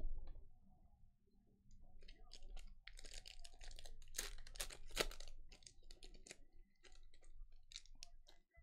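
Faint crinkling and crackling of plastic packaging as trading cards are handled: a dense run of quick crackles, loudest around the middle, with a few more near the end.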